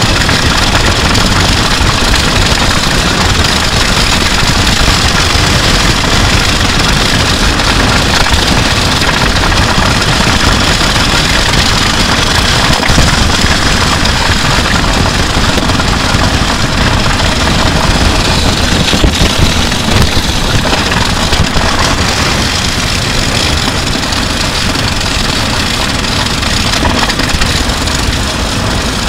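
Electric guitar and bass guitar dragged along wet asphalt, their pickups sending the scraping straight into the recording, together with a drum kit rattling over the road: a loud, steady grinding noise with a few louder knocks around the middle.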